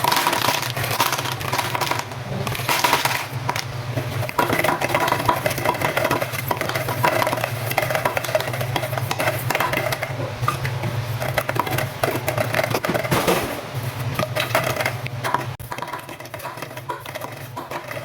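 Plastic drinking straws falling and clattering against one another in a dense run of light clicks and rattles, growing quieter near the end.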